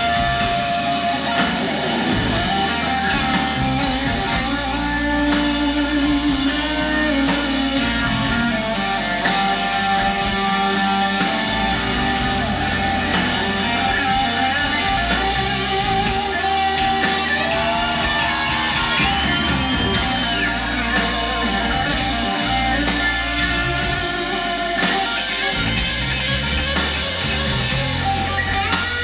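Live rock band playing, electric guitars to the fore over drums, with singing. A held guitar note bends up and back down about two-thirds of the way through.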